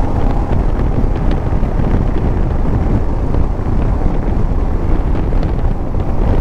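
Wind blowing hard over the microphone on a moving motorcycle, with the motorcycle's engine running underneath it at steady road speed.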